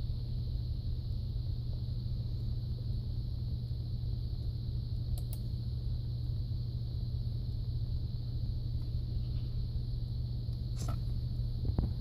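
Steady low electrical hum with a faint high whine, the background noise of a room with a computer and monitor, broken by faint clicks about five seconds in and again near eleven seconds.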